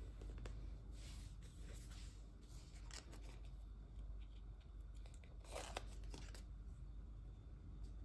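Paper sticker sheet handled and a day-of-the-week sticker peeled off its backing with metal tweezers: soft rustles and scratches, with a longer, louder rasp of peeling about five and a half seconds in.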